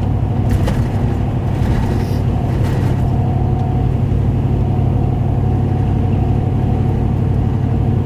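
Vehicle cabin noise at highway speed, about 40 mph: a steady low drone of engine and tyres on a snowy road, with a few knocks from bumps in the first three seconds.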